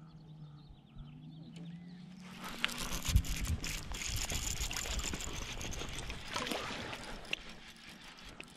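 Water splashing and churning as a small bass is reeled to a float tube and thrashes at the surface, with the baitcasting reel being wound. The splashing starts about two seconds in and dies down near the end.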